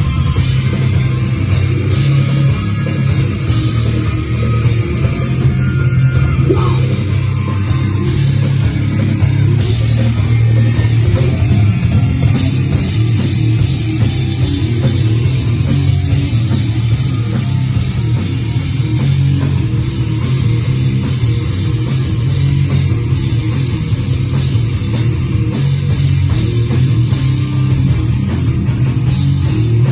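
A metal/hardcore band playing live: loud distorted electric guitars and a drum kit, steady and dense with no break.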